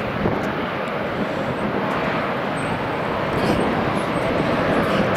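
Distant Airbus A321-211 turbofan engines at takeoff thrust during the takeoff roll: a steady rushing jet noise that grows a little louder over the last two seconds.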